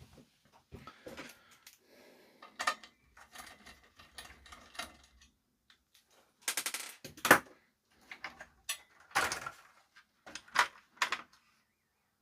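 Handling noise from work inside an opened stereo amplifier: a run of sharp clicks, knocks and rattles from its plugs, connectors and cables being handled. The loudest clatter comes about seven seconds in, with more a couple of seconds later.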